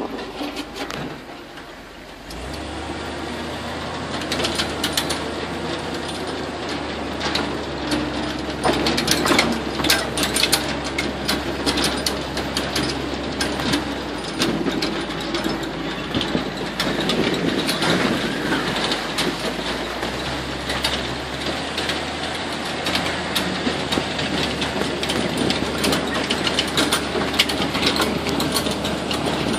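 Swamp buggy engine picking up about two seconds in as the open tour vehicle moves off, then running steadily, with many knocks and rattles from the vehicle as it drives.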